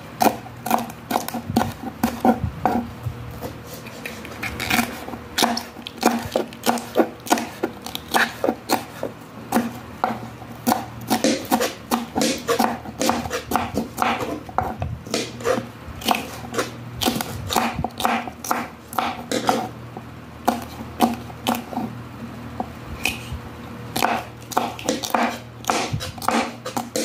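Kitchen knife slicing green bell peppers on a wooden cutting board: a quick, uneven run of sharp knife taps on the board, several a second. A low steady hum runs underneath.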